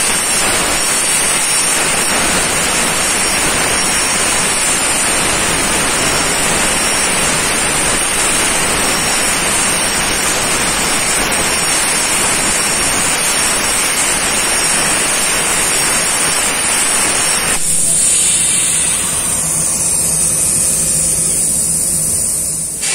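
CNC plasma torch cutting steel plate: a loud, steady hiss with a high whine over it. About 17 seconds in the cutting noise drops away as the cut ends, leaving a quieter air hiss and a high tone that falls in pitch.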